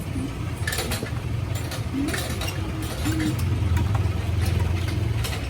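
Yamaha Mio scooter's single-cylinder engine running through a GP-type aftermarket racing exhaust, idling and then growing louder about three seconds in, as on a light rev.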